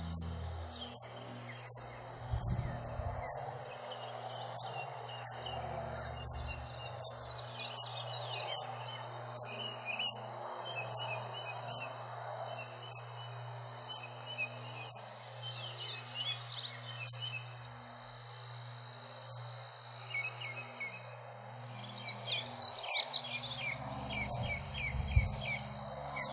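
Summer pasture ambience: an insect making sharp, very high ticks one or two times a second, with songbirds chirping now and then, most in the last few seconds.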